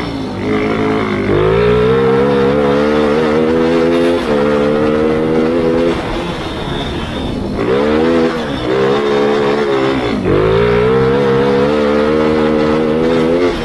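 Grass kart engine racing flat out, its pitch climbing and holding high, then dropping sharply as the throttle comes off for corners, about halfway through and again a few seconds later, before climbing again.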